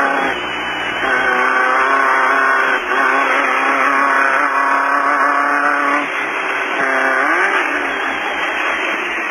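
Desert off-road race car engine running hard under load at a steady pitch. About six seconds in it eases off, then climbs again.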